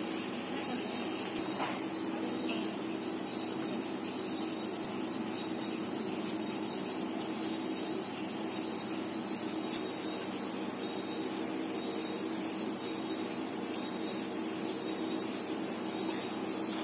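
A continuous high-pitched trill of night insects over a low steady hum.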